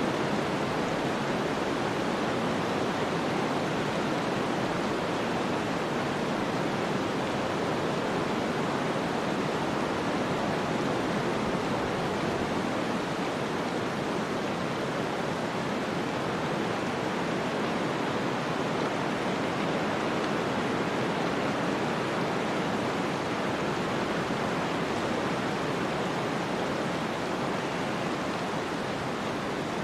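Steady snowstorm ambience: an even rush of blizzard wind, with no distinct gusts, knocks or other events.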